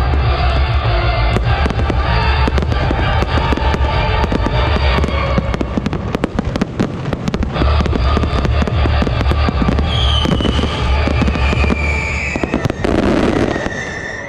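Aerial fireworks display: shells bursting in rapid, overlapping bangs, with loud music playing underneath.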